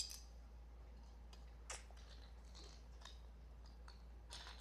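Faint clicks and light clatter of plastic Lego pieces being handled and set down, with a sharper click at the start and another a little under two seconds in.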